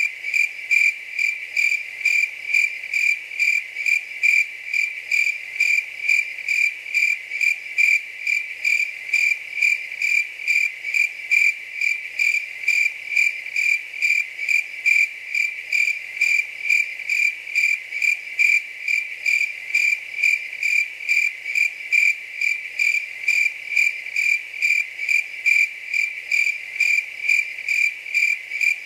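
A cricket chirping in a steady, even rhythm of about two high-pitched chirps a second.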